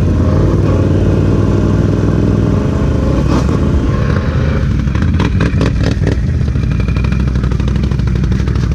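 ATV engines running steadily at low revs, with a cluster of sharp clattering knocks about five to six seconds in.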